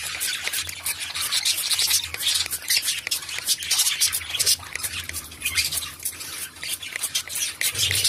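Water spray hissing in quick short bursts, several a second, as the cockatiels get a spray bath. The bursts ease off somewhat around five to seven seconds in.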